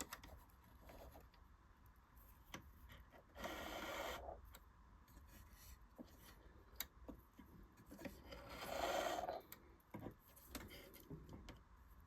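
Hand handling noise at a sewing machine during threading: light clicks and two short rasping rubs, each about a second long, a few seconds apart.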